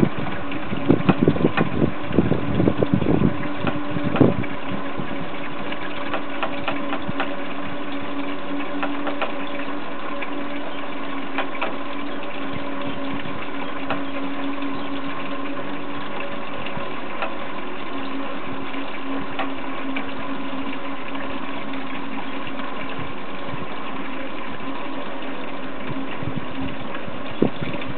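Drive of a small cable ropeway running with a steady mechanical hum, with scattered light clicks. A few louder, irregular rumbles come in the first four seconds.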